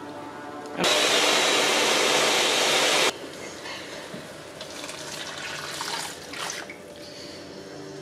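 Countertop blender motor running at full speed for about two seconds, puréeing onion, ginger, garlic and peppers, then cutting off suddenly. Afterwards the blended purée is poured into a pan, a quieter wet splashing.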